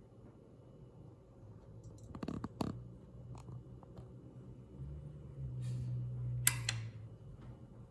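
A few light clicks and taps of a tablet being handled and seated on a homemade copper-prong charging dock. About five seconds in comes a low steady buzz lasting about two seconds, with a sharp click near its end.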